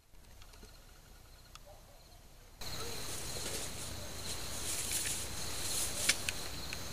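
Field ambience with insects chirping steadily. A little under three seconds in it turns louder, with an even hiss under the insects, and a few sharp clicks sound near the end.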